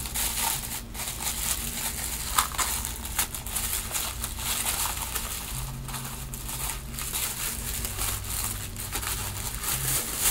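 Wrapping being crinkled and rustled by hand as a small wrapped package is opened: a continuous run of irregular crackling rustles.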